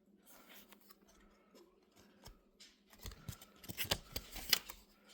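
Pages of a thin paper book being handled and turned: faint rustles at first, then a cluster of crisp paper rustles and clicks from about three seconds in.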